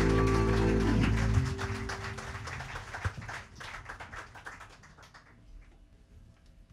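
A live band's final chord sounds and is cut off about a second and a half in. A small audience then claps, and the clapping dies away over the next few seconds.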